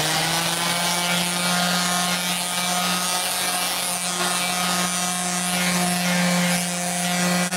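Random orbital sander running steadily at full speed, a constant motor whine over the hiss of its 400-grit pad sanding a cured UV-resin finish on walnut.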